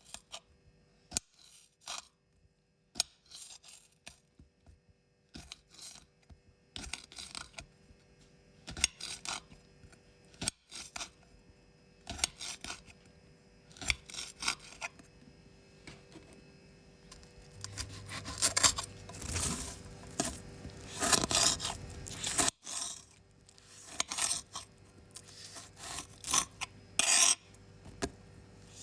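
Vegetables being cut with a knife: a run of separate crisp slicing strokes, spaced out at first, then coming faster and louder through the middle stretch.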